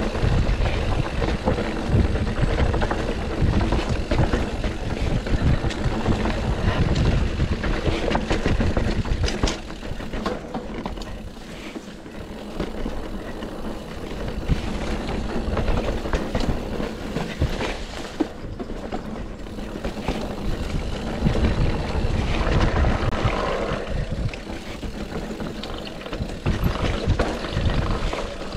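GT Sanction enduro mountain bike descending a rough trail: wind rumbling on the chest-mounted camera's microphone, tyres on dirt and rock, and many quick clicks and knocks from the bike rattling over bumps. Loudest through the first ten seconds, easing off briefly around twelve seconds before picking up again.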